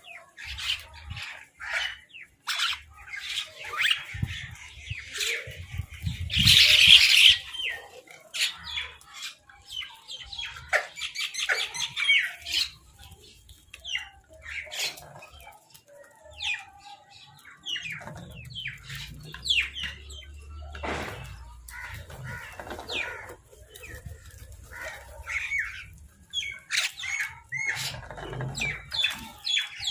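Crows and mynahs calling: many short harsh caws and chattering calls, with a loud harsh burst about six seconds in and a fast rattling run around eleven to twelve seconds.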